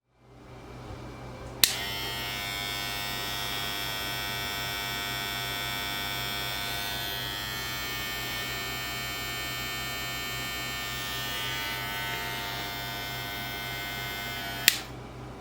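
Caliber cordless hair clipper clicked on about a second and a half in, running with a steady electric hum and a high whine for about thirteen seconds, then clicked off near the end.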